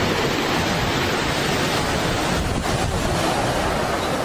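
Heavy surf from a large sea swell rolling in and breaking on the beach, a steady rushing noise of waves.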